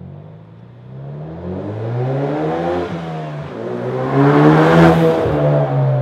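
Ford Focus RS Mk3's 2.3-litre EcoBoost turbocharged four-cylinder through an aftermarket cat-back exhaust, accelerating past. The revs climb, drop once about three seconds in as at a gear change, then climb again and are loudest as the car goes by, falling slightly as it pulls away.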